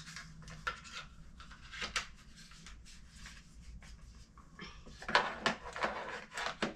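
Packing tape being peeled off a new Keurig coffee maker's plastic parts as they are handled: scattered crackles and clicks, thickening into a denser stretch of crackling about five seconds in.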